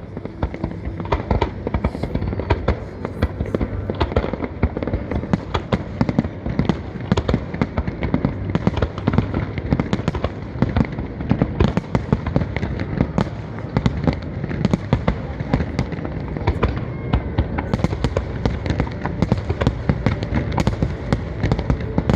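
Festive fireworks salute: a dense, continuous barrage of bangs and crackling reports, many a second, over a steady low rumble.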